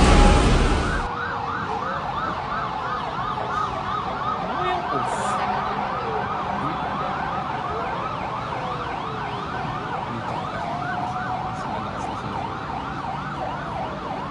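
Several emergency vehicle sirens sounding at once: fast yelping sweeps, about three a second, overlapping with slower rising and falling wails. A loud rush of noise stops about a second in.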